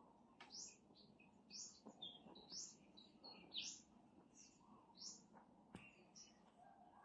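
Faint bird chirping: a string of short, high chirps, about one or two a second, over near silence.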